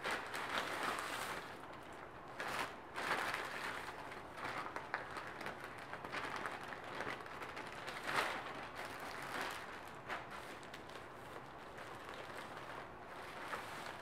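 Plastic mailer bags rustling and crinkling as clothing is handled and pulled out of them, with a few louder crackles.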